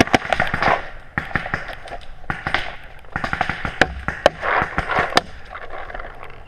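Paintball markers firing in rapid, irregular strings of sharp pops, several a second, thinning out after about five seconds.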